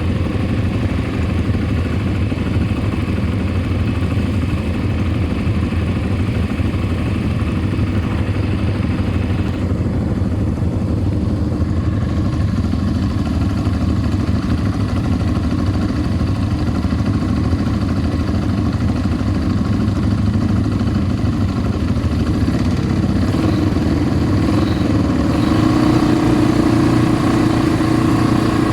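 ATV engine running steadily under way, its note rising a little near the end.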